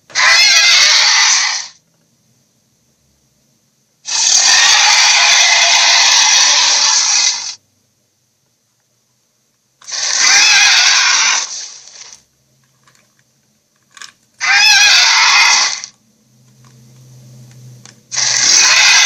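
Giant gorilla roar sound effect: five loud roars of about one and a half to three and a half seconds each, with short silent gaps between them.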